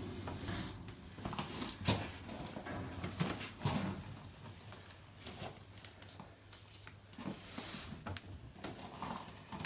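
Handling noise from a stiff, cold clear plastic pipe being moved and laid against a metal tank, with scattered light knocks and clicks.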